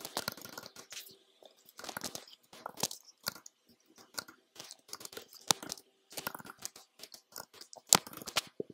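Typing on a computer keyboard: quick irregular runs of key clicks broken by short pauses.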